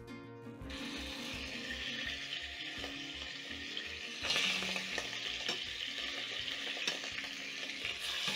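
Beef short ribs sizzling as they are laid into hot cooking oil in a heavy-bottomed pot to sear. The sizzle starts about a second in and gets louder about four seconds in as another rib goes in, with a few light clicks of the metal tongs.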